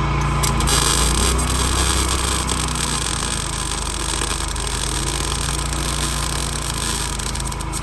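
Welding arc crackling steadily over a low electrical hum, stopping abruptly at the end.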